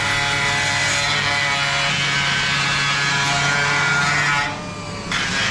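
Hand-held power cutting tool whining steadily as it cuts sheet metal, enlarging a hole in a car hood. About four and a half seconds in it is let off briefly, the pitch winding down, then it is run up again.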